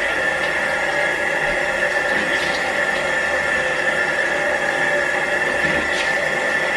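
Bathroom tap running steadily into the sink as she washes her face, with a few faint splashes.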